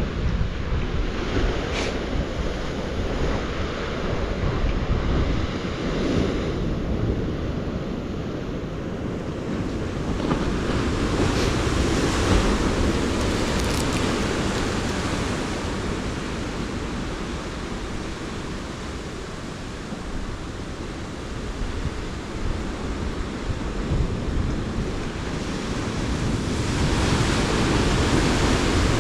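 Ocean surf with wind buffeting the microphone: a steady rush with a low rumble, swelling louder a couple of times.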